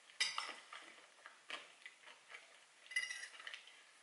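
A metal fork clinks against a plate twice, just after the start and again about three seconds in, each clink ringing briefly. Soft mouth sounds of chewing come between the clinks.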